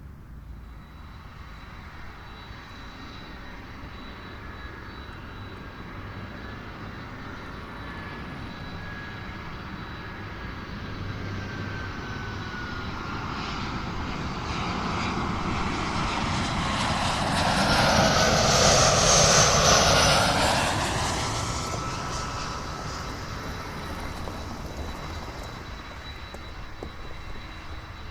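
Airliner on landing approach passing low overhead: the engine noise builds slowly, peaks about two-thirds of the way in, then fades. A thin whine glides slowly down in pitch as the plane nears.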